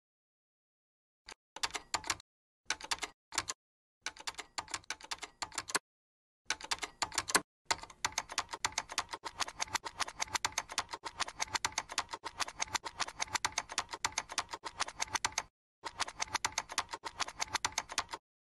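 Computer keyboard typing: fast key clicks in short bursts with gaps for the first several seconds, then a long unbroken run of typing with one brief pause near the end.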